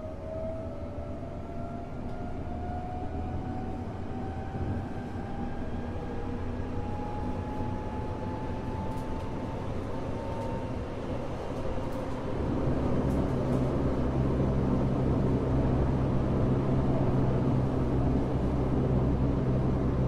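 Tokyo Metro 05 series commuter train running, heard from inside a car. The whine of its early Toshiba IGBT VVVF inverter and traction motors rises slowly in pitch as the train accelerates, fading out about ten seconds in. From about twelve seconds the running rumble grows louder and steadier.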